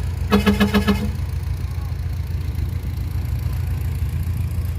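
Heavy diesel engine of earthmoving machinery idling steadily. In the first second a quick run of about five short pitched pulses sounds over it.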